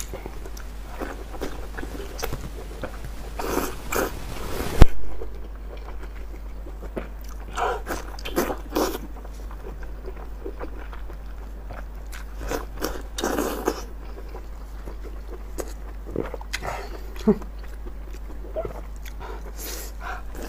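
Close-up wet eating sounds of a person biting and chewing soft, fatty spicy offal: scattered lip smacks, sticky squelches and short clicks, with one much louder sharp click about five seconds in.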